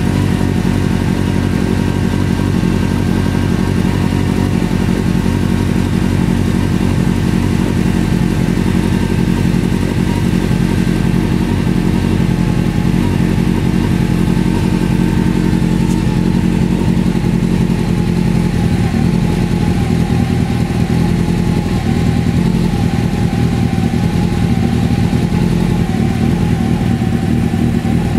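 A 600cc motorcycle engine idling steadily on fuel vapour from a homemade gasoline bubbler, its gasoline warmed in a pan of hot water so it keeps vaporizing and the idle holds.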